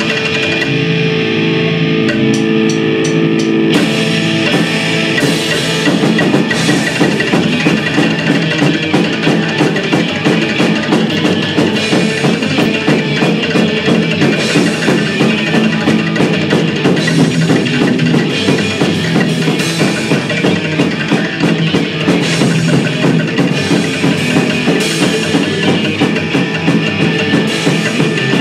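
Live psychobilly band playing an instrumental passage on electric guitar, upright bass and drum kit. Held guitar chords open it, and the drums come in about four seconds in with a steady beat.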